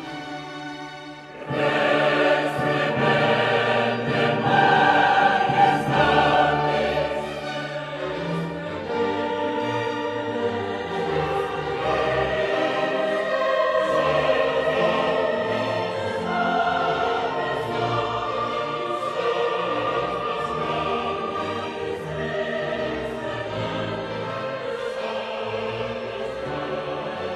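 Choral, opera-style music with singing voices, swelling louder about a second and a half in.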